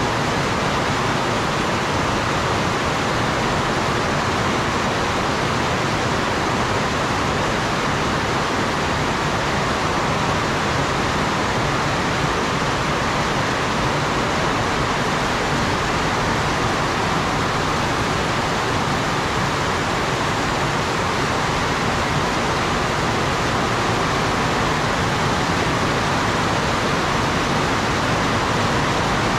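Heavy rain falling hard on garden foliage and roofs, a steady, unbroken hiss.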